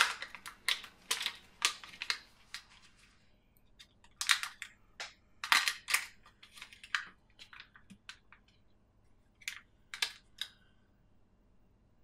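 Foil wrapper of a Kinder Surprise chocolate egg crinkling as it is peeled and the egg split open, then the plastic toy capsule inside being handled and opened. The crackling and rustling comes in irregular bursts, densest in the first few seconds.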